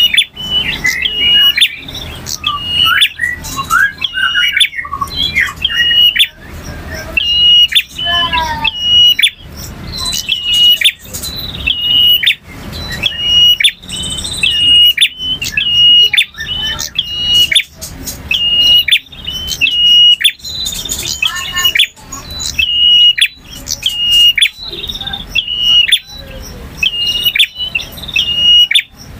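Male prinia (prenjak) singing: a long, unbroken run of short, sharp chirps repeated about twice a second, mixed with quick trills and falling notes in the first few seconds and again about two-thirds of the way through.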